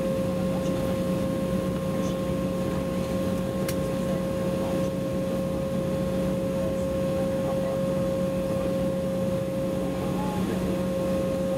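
Steady cabin hum of an Embraer E195 airliner taxiing, its General Electric CF34-10E turbofan engines running at low thrust, with a few steady tones held throughout.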